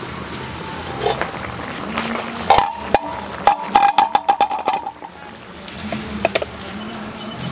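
Metal cooking pot and its steel lid clanking as the lid is lifted off and the pot of curry is handled, with a run of ringing clatters about halfway through and scattered single knocks before and after.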